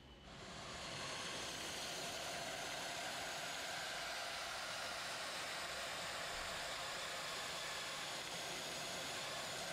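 Compressed-air dry ice blasting gun spraying dry ice pellets: a steady hiss that comes on at the start and swells over the first second, then holds level.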